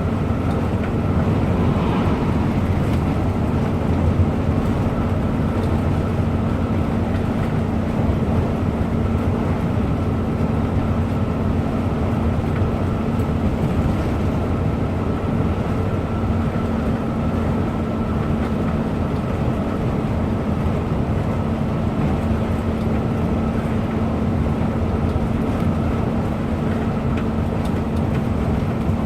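Coach running at steady speed, heard from inside the cabin: continuous engine and road rumble with a steady hum.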